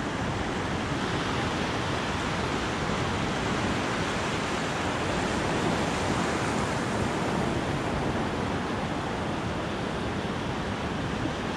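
Ocean surf breaking and washing up a sand beach: a steady rushing wash of water.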